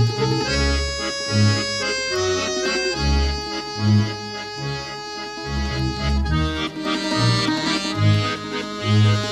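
Instrumental music: long-held chords over a bass line that changes note about once a second.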